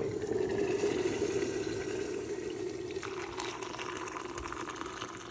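Hot water running into a cup, a steady pour that stops near the end.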